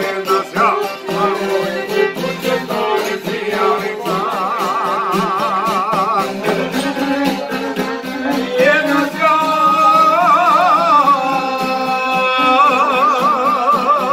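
Men singing a folk song together, accompanied by a violin and guitars. The voices hold long notes with a strong wavering vibrato.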